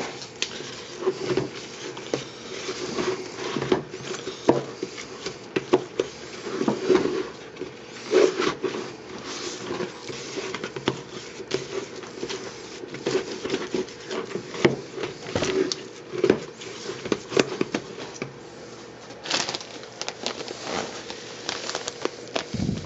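Wooden stick stirring a wet refractory clay mix of ground kitty litter in a plastic tub, with irregular scrapes and knocks against the tub's sides.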